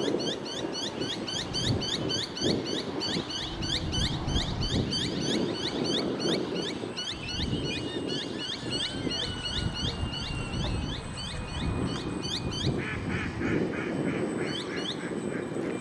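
A water bird calling a long run of short, repeated calls, three or four a second, with a quicker, lower run of calls near the end, over the steady whine of an electric RC boat motor.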